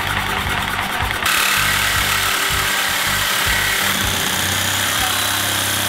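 Reciprocating saw running steadily, its blade cutting through a motorcycle's metal subframe tube. The cut gets louder and harsher about a second in.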